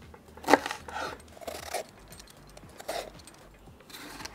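Kitchen knife and hands working an onion on a cutting board: a sharp knock about half a second in and another about three seconds in, with scraping and rustling between as the onion is peeled and coarsely cut.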